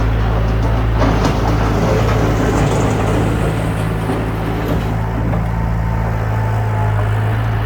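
Bobcat 853 skid steer loader's engine running steadily, with a louder, rougher stretch from about a second in until about five seconds in.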